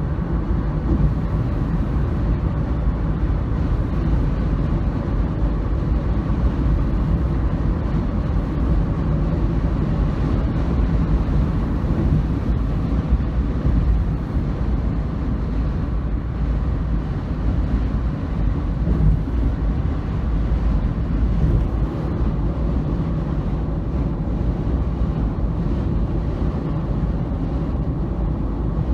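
Steady low rumble of a vehicle in motion, even throughout, with a faint hum above it.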